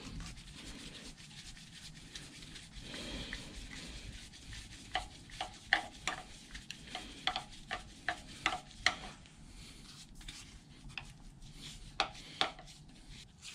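Screwdriver turning the gib retaining screw under a Bridgeport milling machine table: soft rubbing, then a run of light clicks in the middle and a couple more near the end.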